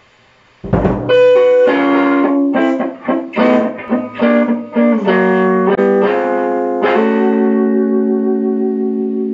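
Electric guitar playing a blues lead: after a brief quiet start and a low hit just under a second in, a run of single picked notes, ending on one held note that rings for the last couple of seconds.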